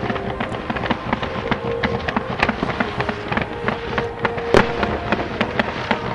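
Fireworks display going off in rapid succession: a dense stream of sharp bangs and crackles, with one louder bang about four and a half seconds in.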